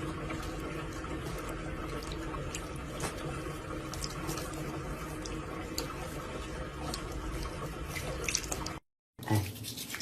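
Steady running water with a few small clicks.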